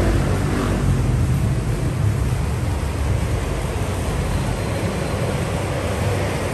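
Steady city street traffic noise: a low engine rumble under an even hiss, with no single event standing out.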